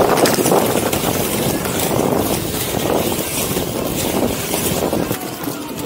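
Skate wheels rolling over pavement, a steady rough rumble.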